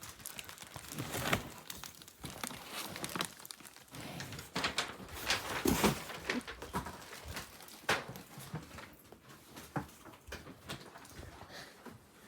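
Irregular rustling, shuffling and scattered knocks and clicks, as of household things being moved and handled.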